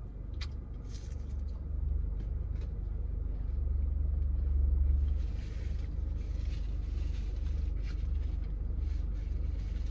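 Steady low rumble inside a car's cabin, swelling about halfway through, with a few faint clicks and mouth noises of someone chewing crispy chicken nuggets.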